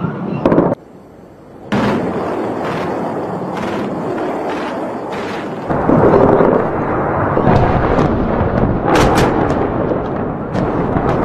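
Aerial bombs exploding in the distance across a city: a continuous rumble with sharp cracks about once a second after a brief lull near the start. The rumble grows louder and deeper about six seconds in, with a cluster of cracks near nine seconds.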